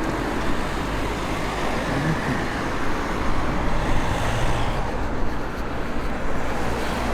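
Road traffic going past: a steady rush of passing vehicles.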